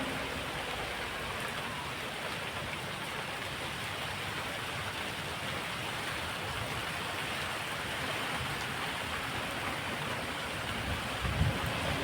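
Steady heavy rain hissing. About eleven seconds in, gusts of wind start buffeting the microphone with low rumbles.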